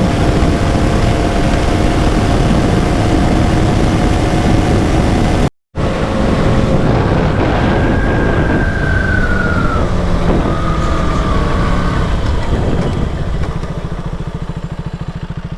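KTM Duke 200 single-cylinder engine running on the move, with road and wind noise, broken by a brief silent cut about five and a half seconds in. Near the end it drops back and settles into a steady, lumpy idle.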